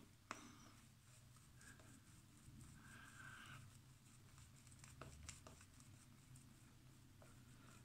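Faint swishing of a synthetic shaving brush working lather onto the face, with a few soft clicks.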